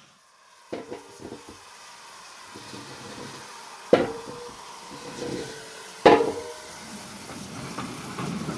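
A few light knocks, then two loud metallic clanks about two seconds apart, each ringing briefly.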